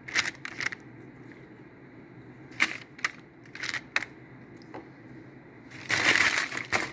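A silicone basting brush dabbing and scraping sauce onto a salmon fillet in a plastic-lined glass baking dish: a handful of short, scattered scrapes and taps, then a longer scraping rustle about six seconds in.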